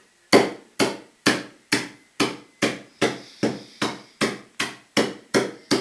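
A hammer striking pasta on a kitchen surface in a steady rhythm, about two sharp blows a second.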